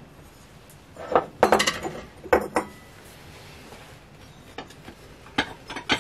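China cups and saucers clinking against each other as they are handled and taken out of a box: a cluster of sharp clinks in the first half, one leaving a brief ring, then lighter clicks near the end.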